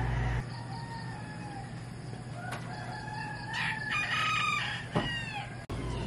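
Rooster crowing, the loudest crow about four seconds in, with fainter calls around it. A steady low hum cuts off just after the start.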